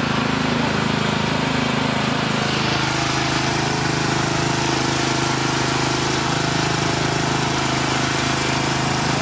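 Fishing boat's engine running steadily, a continuous mechanical drone at an even pitch.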